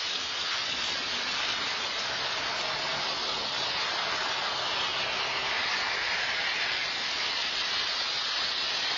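Steady hiss of rain on a wet street, picked up by an outdoor security camera's microphone.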